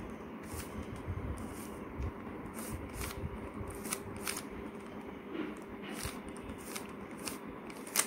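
Plastic 3x3 Rubik's cube being turned by hand through the last-layer edge algorithm: its layers click and scrape as they rotate, in irregular sharp clicks about two a second.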